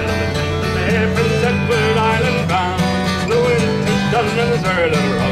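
Fiddle playing a wavering melody over a strummed acoustic guitar, in a folk tune.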